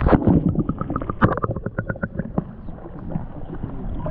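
Muffled underwater sound from a camera dipped into shallow tidal water: bubbling and sloshing with many small clicks, busiest in the first two and a half seconds, then settling to a steadier muffled wash.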